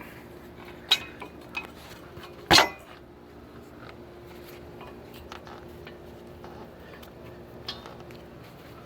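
Metal clinks and knocks as a brake caliper is set back over new brake pads: a few sharp clinks, the loudest about two and a half seconds in, with a faint steady hum underneath.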